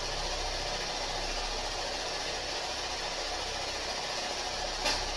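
Steady hiss of static with no voice in it, broken by a single sharp click about five seconds in.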